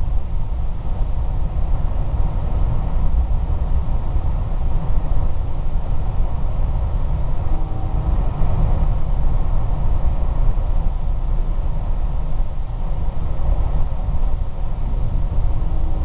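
Steady low rumble of a moving vehicle, heard from inside while it travels at an even speed.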